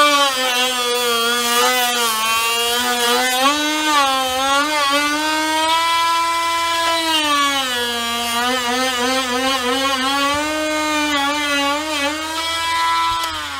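High-speed rotary grinder with a carving burr cutting into tamarind wood. Its steady whine sags in pitch each time the burr bites under load and recovers as it eases off, sagging deepest about eight seconds in.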